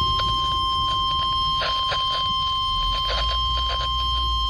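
NOAA Weather Radio warning alarm tone: a single steady 1050 Hz tone marking a tornado warning, with radio static crackling irregularly over it.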